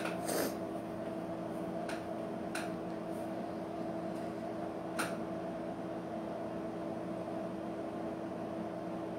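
Steady humming room tone with a held pitch, like a fan or appliance running, and a few faint clicks.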